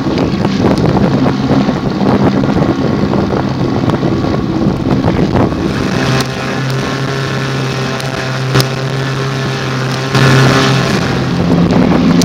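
Small motorboat's engine running under way on choppy water, with wind buffeting the microphone. The engine's steady hum stands out clearly from about six seconds in.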